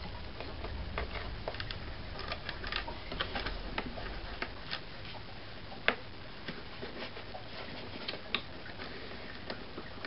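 Scattered small clicks and taps of fingers working a light spring hose clamp onto the tubing inside a coffee maker's plastic base, with one sharper click about six seconds in.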